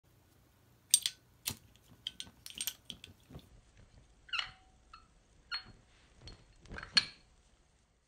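Zippo lighter being flicked open, struck and lit, and snapped shut: a series of sharp metallic clicks and clinks, some with a brief ring.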